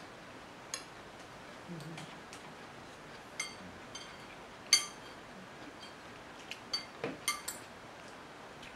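Metal spoons clinking against ceramic bowls as people eat: scattered sharp, ringing clinks, the loudest about five seconds in and a quick cluster of them near the end.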